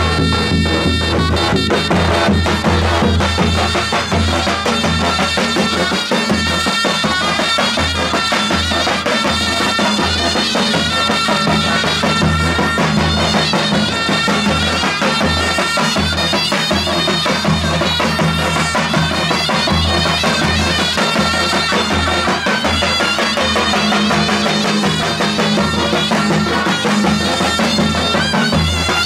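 Zurna and davul playing a Turkish folk dance tune: the double-reed zurna carries a sustained, reedy melody over a steady beat on the large davul drum.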